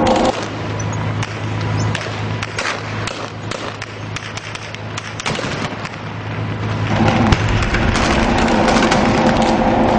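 Combat gunfire: scattered sharp cracks and bangs over a noisy background. A tank's engine drone drops out just after the start and comes back about seven seconds in, with one louder bang just after it returns.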